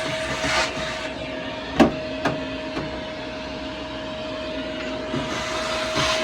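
Vacuum cleaner running with a steady whine while it sucks dirt out of an old metal toolbox. Two sharp knocks come about two seconds in as the nozzle hits the box.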